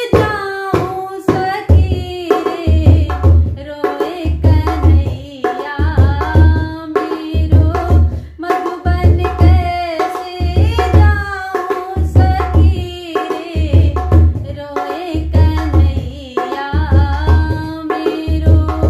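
Dholak played with both hands in a steady folk rhythm: deep bass strokes repeating under sharper slaps, while a woman sings a Hindi folk song over it.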